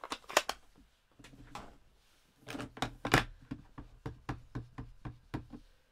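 Plastic Stampin' Up ink pad cases clacking and knocking together as one is pulled from a stack and handled: a quick cluster of knocks about halfway through, then a string of separate clicks.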